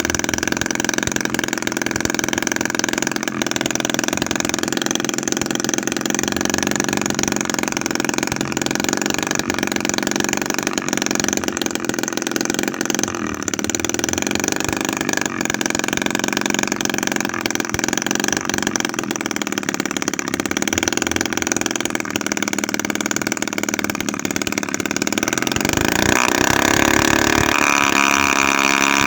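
Homemade 7 cc two-stroke engine, built from a used refrigerator compressor with a 25 mm bore and 16 mm stroke, running steadily with its speed wavering a little. Near the end it speeds up and gets louder.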